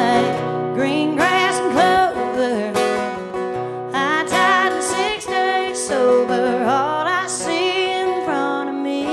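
A singer sings a sustained, wavering melody with vibrato over an acoustic guitar: a live singer-songwriter performance.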